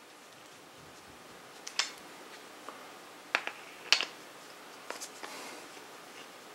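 Plastic leveling foot being screwed onto the end of a metal shelf rod by hand: a handful of sharp, scattered clicks of plastic on metal, most of them between about two and five seconds in, with a short scrape near the end.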